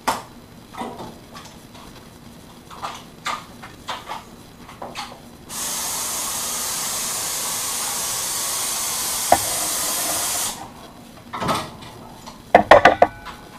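Water hose spraying onto a dip tank, a steady hiss that starts and stops abruptly and lasts about five seconds in the middle. Scattered clicks and knocks come before it, and a quick cluster of sharp knocks comes near the end.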